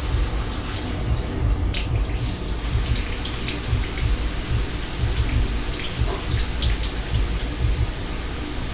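Water from an overflowing kitchen sink pouring and splashing, with scattered drips and a steady low rumble underneath.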